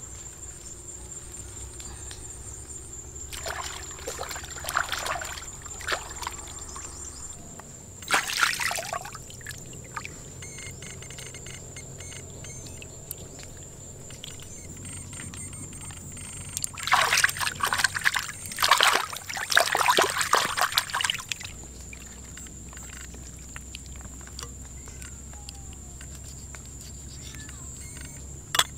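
Water splashing and sloshing in several bursts: a few seconds in, again around eight seconds, and a longer spell past the middle. A steady high-pitched insect drone runs underneath.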